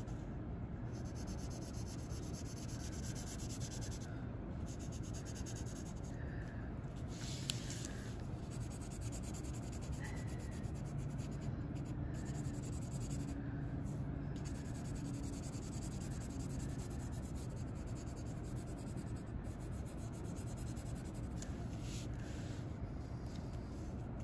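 Pencil shading on paper: the lead rubbed over the sheet in a steady run of scratchy strokes, using the side of the pencil.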